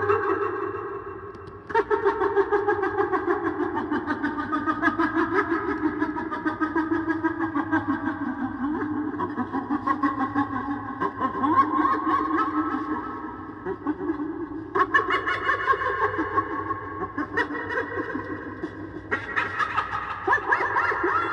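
Monster sound effect built from hyena laughter: rapid, pulsing, giggling cackles in long bouts, breaking off briefly about a second and a half in and again near the three-quarter mark.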